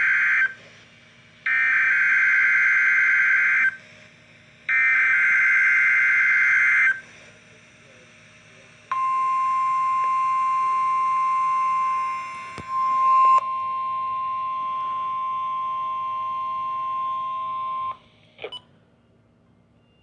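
NOAA Weather Radio Required Weekly Test alert: the SAME digital header, a warbling data screech, sent in repeated bursts of about two seconds with a second's pause between, then the 1050 Hz warning alarm tone held steady for about nine seconds, briefly dipping and jumping in level partway through. It ends with a short click.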